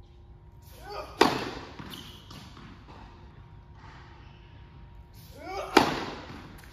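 Two tennis serves about four and a half seconds apart. Each is a sharp crack of racket strings on the ball, with a short grunt from the player leading into it and ringing in a large hall. Faint knocks of the ball being bounced on the court come in between.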